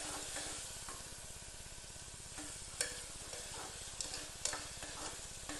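Chopped onions frying in oil in a pressure cooker pot, a steady sizzle, stirred with a ladle that knocks and scrapes against the pot a few times.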